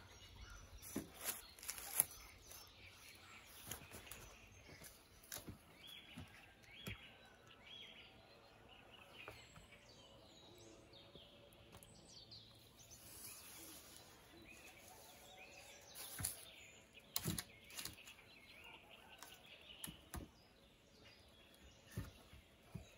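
Wooden poles knocking and clattering as they are stepped on and laid across a dugout's roof, a few sharp knocks scattered through, loudest near the start and twice more near the end. Birds chirp faintly in the background.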